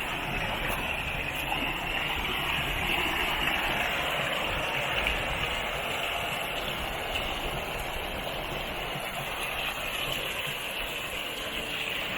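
Stream water running steadily, an even rushing noise.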